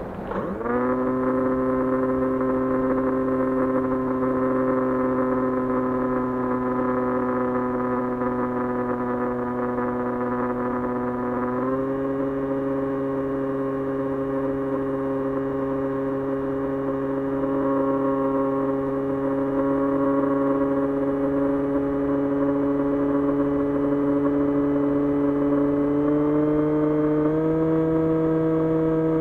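2300KV brushless electric motor and propeller of an S800 FPV model plane spooling up about half a second in, then running with a steady whine whose pitch steps up slightly about twelve seconds in and again twice near the end as the throttle is raised.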